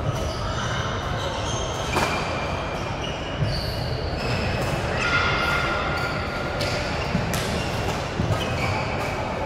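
Badminton doubles rally: court shoes squeaking on the floor in short high chirps, with sharp racket hits on the shuttlecock about two seconds in, again a second and a half later, and a quick pair near the end, over a steady background murmur.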